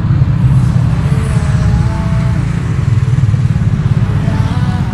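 Motorcycle with a single-cylinder engine (TVS Apache RR 310) running as it rolls slowly, under a steady heavy low rumble.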